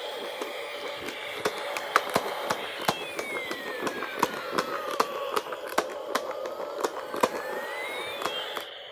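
Toy police helicopter's electronic siren wailing slowly up and down over a steady motor hum, with many irregular sharp clicks from the toy. The sound cuts off near the end.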